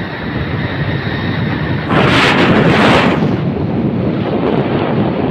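Wind buffeting the microphone of a phone filming from a moving motorcycle, a steady rushing noise that grows louder for about a second around two seconds in.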